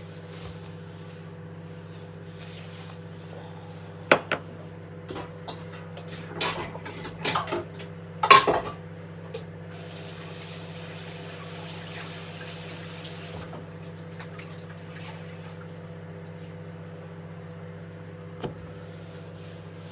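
Dishes and kitchen utensils knocked and set down several times, loudest in a cluster around the middle, over a steady low electrical hum. A few seconds of soft hiss follow, then one more light knock near the end.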